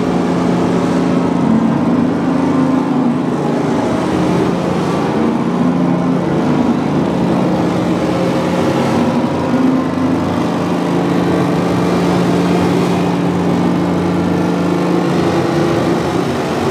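Loud electronic noise-drone music played live: a steady low hum under a dense, unbroken wash of noise.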